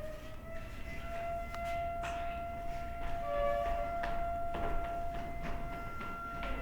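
Outdoor civil-defence siren holding its wail at a steady pitch after a slight rise at the start, with scattered clicks and knocks and a brief extra tone a little past the middle.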